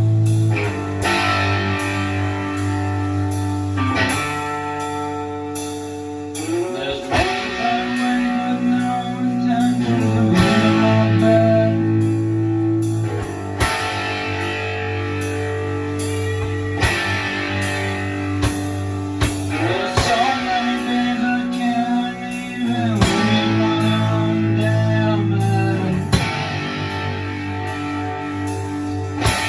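Guitar music: a jam cycling through the same three chords, each held for about three seconds, with a melody line bending in pitch above them.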